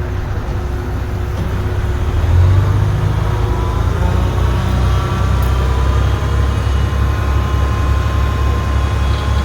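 Komatsu D31P bulldozer's diesel engine running steadily under load, with a swell in loudness about two and a half seconds in.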